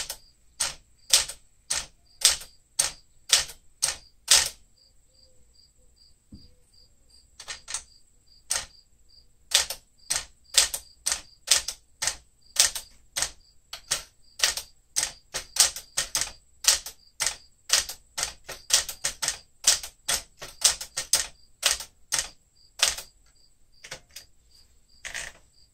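Keystrokes of a 1967 Sears Tower Citation manual typewriter, built by Smith Corona, typing out its character and symbol keys: sharp single typebar strikes at a steady pace, with a pause of about three seconds about four seconds in.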